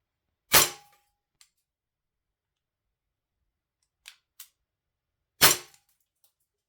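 Walther P99 DAO CO2 blowback pistol fired twice, about five seconds apart, each shot a sharp crack with a brief ring after it. Two light clicks come just before the second shot.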